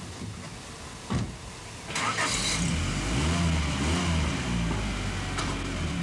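A thump about a second in, then a car engine starting about two seconds in and running, its pitch rising and falling with light revs.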